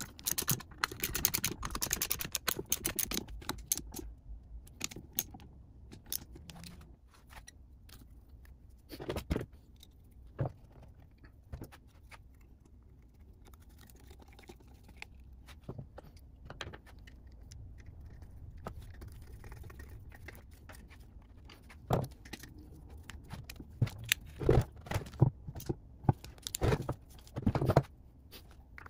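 Hand tools and metal parts clicking and clinking on a golf cart motor's end cap during reassembly: a dense run of rapid metallic clicks in the first few seconds, then scattered taps and knocks, and a louder cluster of clatter near the end.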